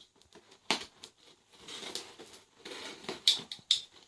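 Packaging being handled: crinkling and rustling, with several sharp clicks and knocks about a second apart.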